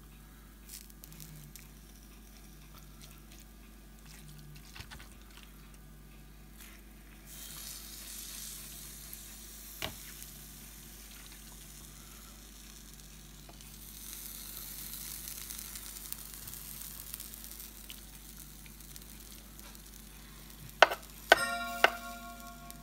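Steak and red wine pie filling being spooned from a plastic tub into pastry cases in a hot electric pie maker: soft wet scraping and spooning with a faint sizzle. A few sharp knocks come near the end, followed by a ringing tone.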